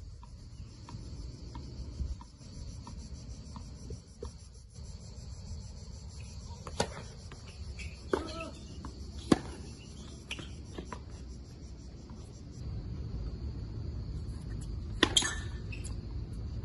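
Tennis ball struck by racket: several sharp pops about 7, 8, 9 and 15 seconds in, over a steady high buzz of insects.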